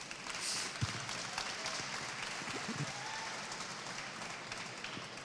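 Audience applause, a dense patter that swells about half a second in and fades toward the end.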